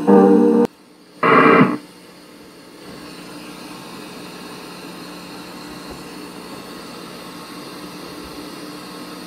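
Electric piano music that cuts off abruptly under a second in, a short loud pitched tone about a second later, then a steady hiss of tape-like static with a faint low hum.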